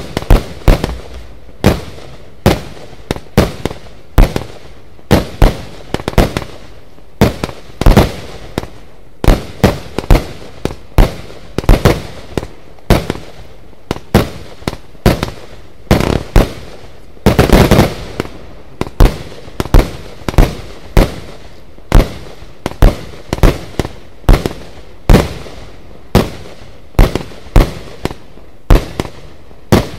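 Lesli 'Poisonous Panther' firework cake firing shot after shot, about one and a half sharp bangs a second, each with a short fading tail. A little past the middle, a thicker flurry of shots comes in quick succession for about a second.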